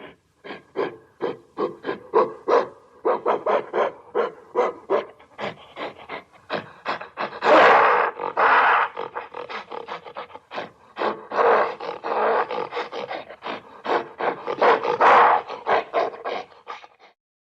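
Gorilla-like hoarse grunts in a rapid series, about three or four a second, that swell several times into longer roars and stop abruptly.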